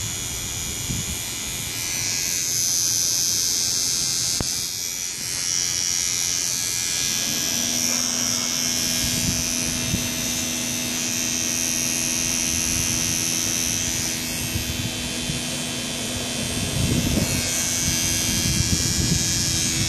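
Small cordless electric pet trimmer running steadily as it clips the short hair around a Shih Tzu's eyes. A higher whine comes in about two seconds in, drops away about two-thirds of the way through and returns near the end.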